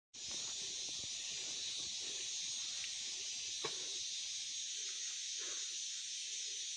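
Steady high-pitched drone of forest insects, with a single faint click about three and a half seconds in.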